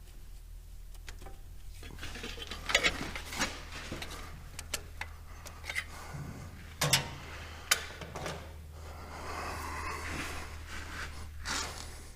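Hand work on a tractor's tach drive as it is pushed and worked into its bore against the resistance of a new O-ring: scattered sharp clicks and knocks, then a stretch of rubbing and scraping near the end. A steady low hum runs underneath.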